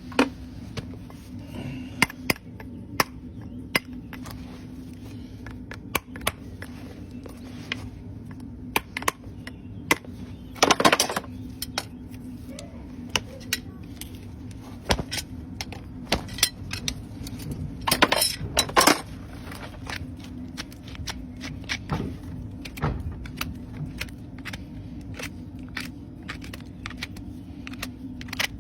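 Farrier's tools working on a horse hoof: irregular sharp clicks and snips, with two longer scraping strokes of about a second each, over a steady low hum.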